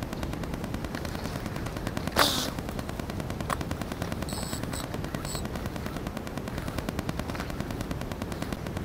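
A continuous fast crackling rattle over the whole recording, an unexplained fault in the audio track. A single sharp, louder snap comes about two seconds in.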